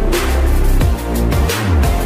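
Electronic background music with a heavy bass line and a fast, driving drum beat.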